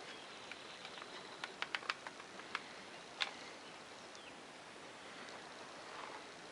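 Quiet background with a run of about eight faint, sharp clicks between one and a half and three seconds in, and faint thin high calls.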